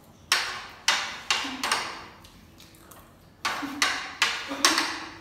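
Metal spoons clinking against plates while eating: sharp, ringing clinks, about four in the first two seconds, then a pause, then a quicker run of about five.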